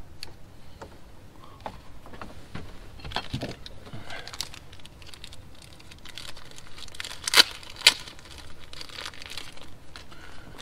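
Hands working with small parts and tools: crinkling and rustling with scattered clicks and taps, and two sharp snaps about half a second apart a little past the middle.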